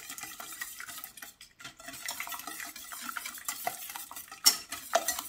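Wire balloon whisk beating eggs, sugar and melted butter in a stainless steel saucepan: a rapid run of clinks and scrapes of the wires against the pan, with one louder knock about four and a half seconds in.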